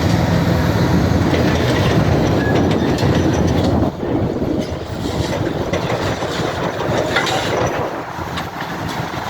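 Building demolition: a heavy machine's diesel engine running under load with rumbling, crunching and clattering of debris. The engine's steady hum drops off about four seconds in, leaving irregular clatter.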